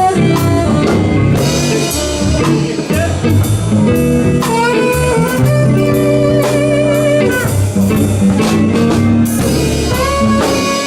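Blues band playing an instrumental passage: a guitar lead with held, bent notes that waver in pitch, over bass and drums.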